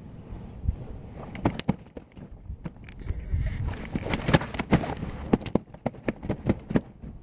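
A string of irregular sharp knocks and clicks, sparse at first and coming thick and fast over the last few seconds.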